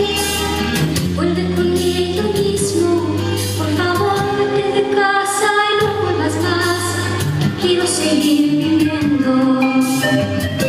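Pop music with singing playing at a steady level, the melody moving through held notes.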